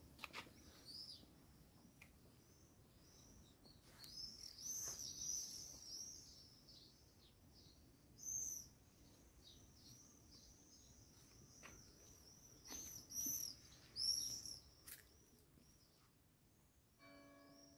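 Small birds chirping and singing, many short, high, downward-sliding calls, with louder bursts of song about four, eight and thirteen seconds in. A soft held musical chord comes in near the end.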